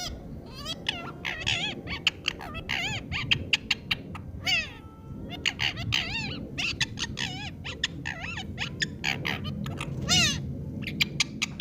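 A parrot's rapid run of short warbling calls and squawks, pitch sliding up and down, with many sharp clicks between them.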